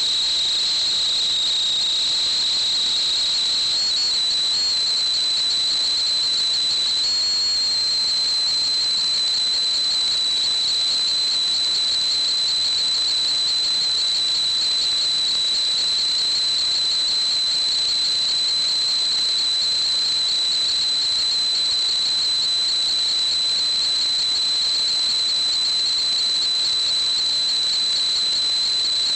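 A steady high-pitched whistle over a hiss, wavering briefly twice in the first several seconds.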